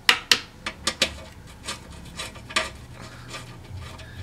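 A run of sharp, irregular metallic clicks and light scraping, quickest in the first second: a screw being started a couple of threads by hand into the transmission through the steel oil pan, with tool and metal knocking lightly together.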